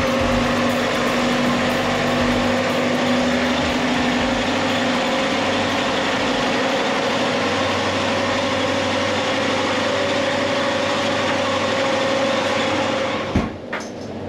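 Sailboat's inboard marine diesel engine running steadily, heard loud through its open engine compartment; this is a routine check. Near the end a sharp knock, and the engine noise drops and becomes muffled as the compartment is shut.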